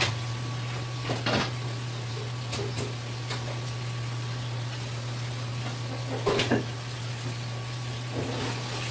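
Light knocks and scrapes of a long sashimi knife and fingers against a plastic serving tray as sliced sea bream is nudged into place, once about a second in and again around six seconds in, over a steady low hum.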